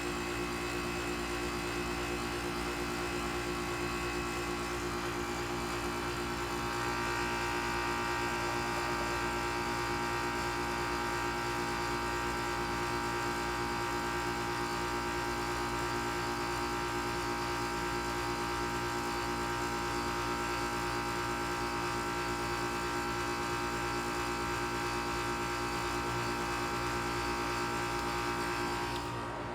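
Goodman GSZ14 heat pump outdoor unit running with a steady hum made of several fixed tones. About seven seconds in, it gets a little louder and a higher whine joins in, then it holds steady.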